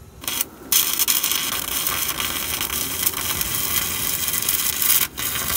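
Stick welding arc from a flux-coated electrode welding a muffler joint, running steadily. It strikes about a quarter second in, breaks off and restrikes almost at once, then stops briefly about five seconds in before restarting. The weld is going in easily.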